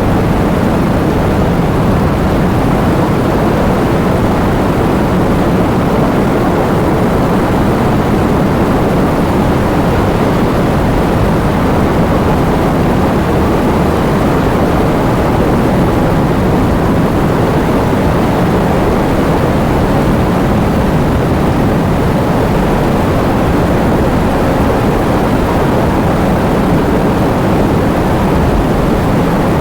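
Tornado sound effect: a loud, steady rush of wind noise, heaviest in the low range, with no gusts or breaks.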